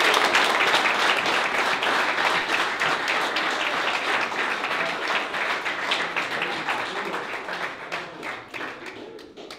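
A roomful of guests applauding: dense clapping that thins out and fades over the last couple of seconds.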